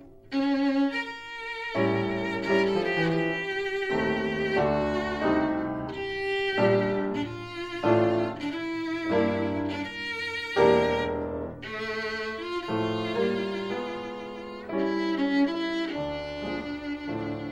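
Background music: a violin playing a melody with vibrato over a lower accompaniment.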